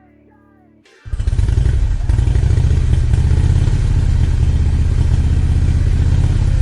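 Faint background music, then about a second in a power saw is switched on and runs loudly and steadily, with a deep motor hum under a wide whirring hiss, ready to trim the glued-up wood panel.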